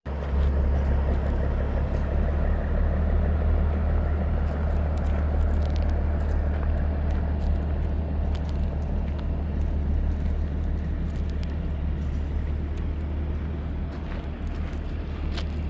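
A vehicle engine running with a steady low rumble, with a few faint clicks over it.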